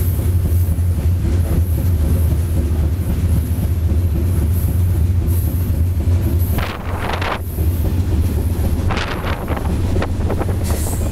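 Steady low rumble and rattle of a moving freight train heard from aboard one of its cars, with two short bursts of higher-pitched rail noise, one about six and a half seconds in and one about nine seconds in.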